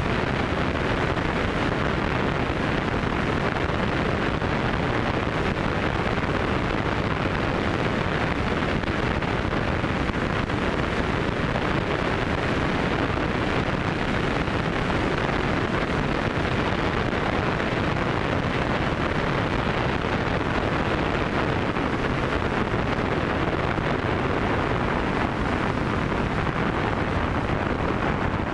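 Steady wind rush buffeting a wing-mounted action camera's microphone, with the Zenith CH200 light aircraft's engine and propeller running beneath it at an even level throughout the approach and touchdown.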